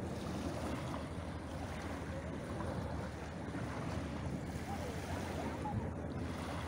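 Small waves washing in on a pebble beach, a steady sound of surf, with wind noise on the microphone.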